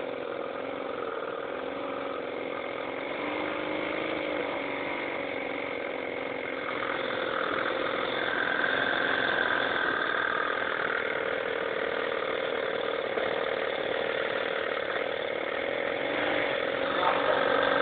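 Small lawn mower petrol engine running steadily on its own, sounding smooth.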